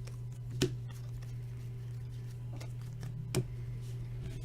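Two short, light clicks about three seconds apart over a steady low hum.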